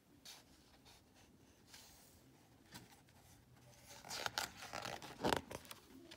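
Paper rustling and sliding as a picture book's page is turned by hand, mostly in the second half, with its loudest swish about five seconds in.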